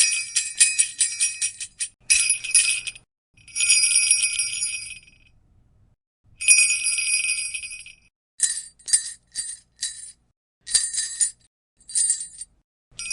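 Sleigh bells shaken in bursts. First comes a run of rapid shakes, then two longer continuous jingles of about a second and a half each, then a series of short single shakes with brief silences between.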